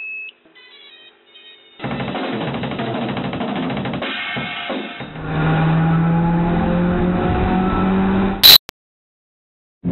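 Logo-intro music and sound effects: a short beep, then a loud drum-heavy build-up with slowly rising tones from about five seconds in, ending in one very loud sharp hit near the end.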